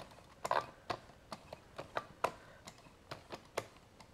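Uneven clicking and ticking, about three or four clicks a second at varying strength, from a small motor-generator test rig turning slowly with little torque.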